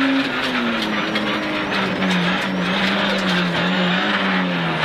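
Peugeot 106 rally car's engine running hard at high revs, dropping in pitch about a quarter second in and then holding with a slight waver, over the hiss of tyres on gravel and a scatter of stones ticking against the underbody.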